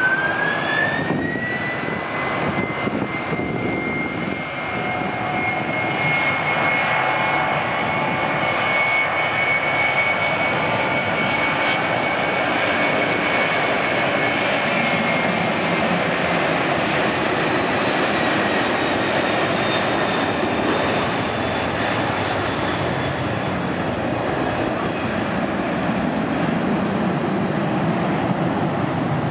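Boeing 767-300 freighter's twin General Electric CF6-80C2 turbofans spooling up to takeoff thrust: a whine rises in pitch over the first two seconds, then holds high over a loud jet roar through the takeoff roll and climb-out. The whine fades about halfway through, and a deeper roar remains as the aircraft climbs away.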